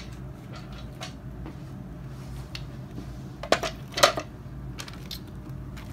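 Red plastic hoverboard shell top being picked up and handled, with light knocks and two sharp plastic clacks about three and a half and four seconds in. A low steady hum runs underneath.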